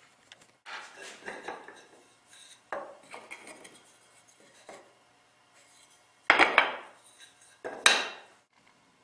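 Woodworking hand tools at work on wood: a stretch of scraping and rubbing with a sharp knock, then two short, louder sharp strokes near the end.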